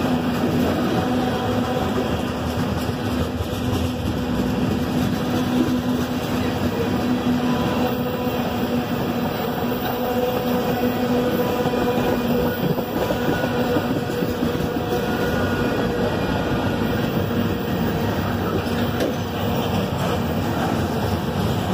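Norfolk Southern freight train's cars rolling past: a steady, unbroken rumble of steel wheels on the rails, with a faint steady hum underneath.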